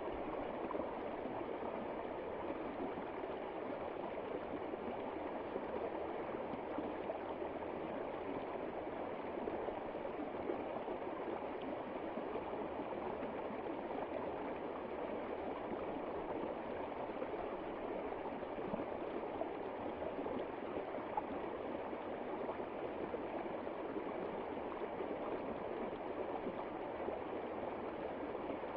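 Water running and gurgling steadily, like a stream, with no change throughout.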